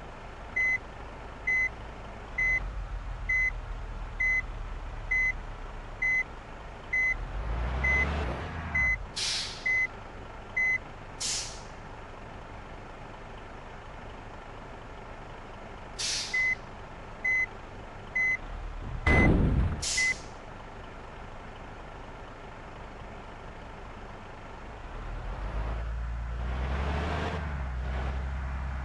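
Reversing beeper on a heavy vehicle giving a single high beep about once a second, pausing for a few seconds in the middle, with several short sharp hisses of air brakes and the engine revving up now and then, most strongly near the end.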